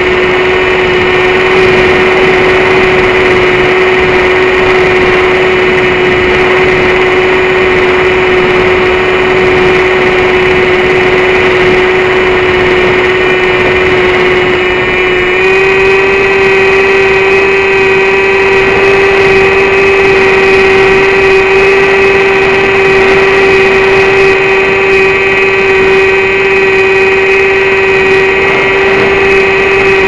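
Electric motor and pusher propeller of an XUAV Skysurfer foam plane in flight, heard through its onboard camera's microphone: a steady, loud whine over rushing wind. About halfway through, the pitch steps up slightly with a small throttle increase.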